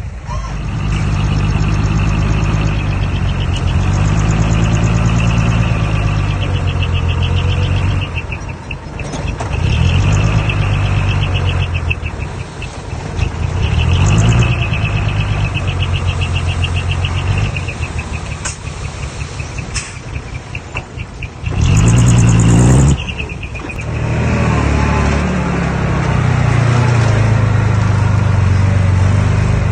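Heavy machinery's diesel engine working, its revs rising and falling repeatedly under load. About two-thirds of the way through there is one short, loud burst of noise.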